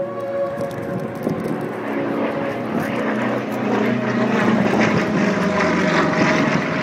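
Propeller-driven aerobatic aircraft engine droning overhead, growing louder about four seconds in as a plane passes closer.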